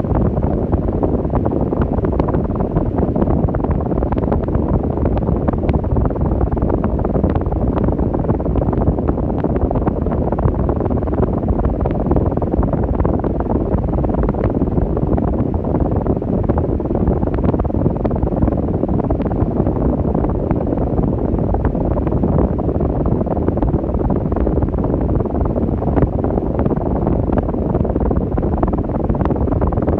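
Arno Ultra Silence Force electric fan running, its airflow hitting the microphone as a steady low rushing noise.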